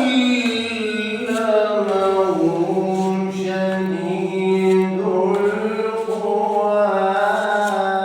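A single unaccompanied voice singing one long held note, its pitch stepping down slightly about two seconds in while the vowel shifts.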